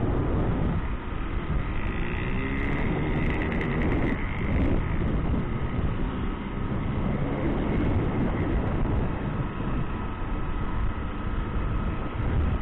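Motorcycle engine running while riding along a paved street, with wind rushing over the microphone; the engine note rises briefly during the first few seconds.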